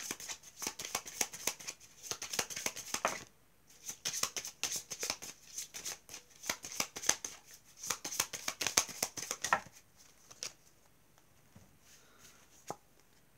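A deck of oracle cards being shuffled by hand: a rapid run of crisp card-on-card clicks, with a short break about three seconds in. The shuffling stops about ten seconds in, followed by a few faint taps as cards are laid down on a cloth-covered table.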